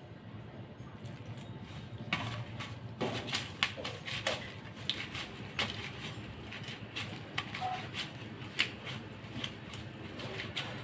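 A hand squishing and kneading chicken pieces in a wet cornflour batter in a steel bowl, with irregular wet squelches and clicks starting about two seconds in.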